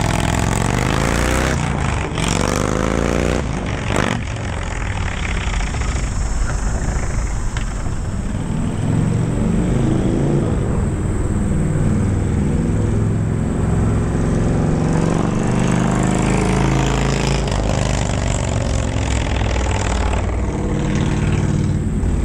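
Indian Thunder Stroke 111 air-cooled V-twin motorcycle engine running through TAB aftermarket exhaust baffles and a 2-1-2 head pipe. The throttle is blipped twice in the first few seconds, then the engine is revved up and back down more slowly a couple of times.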